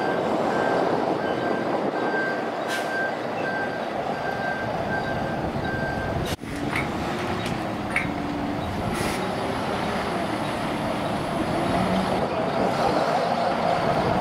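Diesel engine of a single-decker bus running as it manoeuvres past at close range and then pulls away, the engine note getting louder near the end. A high repeated beep sounds over the first half.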